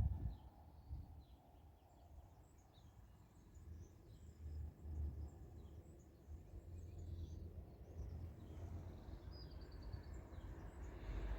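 Several small birds chirping and calling in short, scattered notes, over a low rumble, with a brief knock right at the start.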